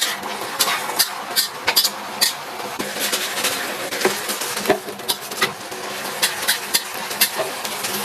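Stir-frying in a pan: a utensil clinks and scrapes against the pan over a steady frying sizzle.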